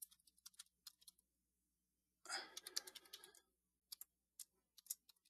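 Faint computer-keyboard typing: a quick scatter of separate keystrokes entering a password, with a brief soft sound about two seconds in.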